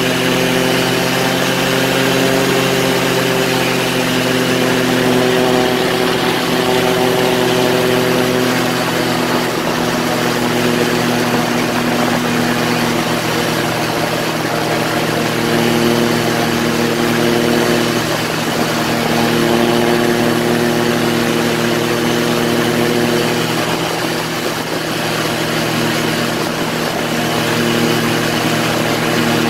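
Quicksilver ultralight's engine and propeller running steadily in flight, the engine note drifting slightly up and down in pitch.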